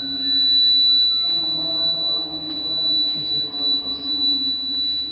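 Fire alarm control panel buzzer sounding a continuous, steady high-pitched tone, with fainter lower tones wavering beneath it.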